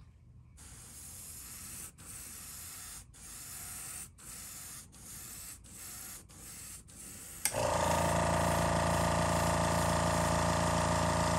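Airbrush spraying paint at 10 to 12 psi as a soft hiss, cut into short strokes by several brief pauses of the trigger. About seven and a half seconds in, a motor starts suddenly and runs with a steady hum, louder than the spray.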